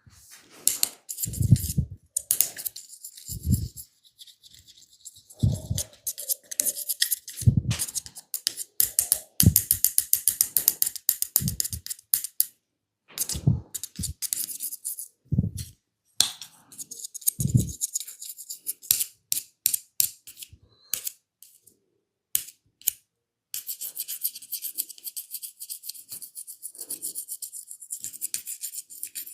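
Hands massaging a person's head and skin: quick rubbing and scratching strokes over hair and skin, with a dull thump about every two seconds for most of the stretch. Near the end the strokes turn into a steady, fast rubbing.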